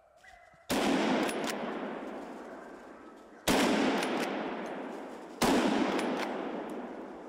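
Three hunting gunshots, the second nearly three seconds after the first and the third about two seconds later. Each one cracks suddenly and then dies away in a long echo through the forest.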